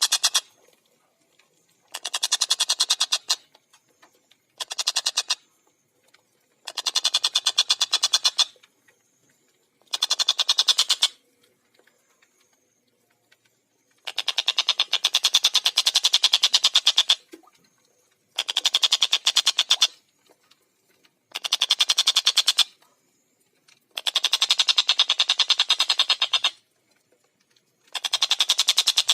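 Stork-billed kingfisher (tengkek buto) giving its loud, rapid cackling chatter in about ten separate bouts of one to three seconds each, with short pauses between them.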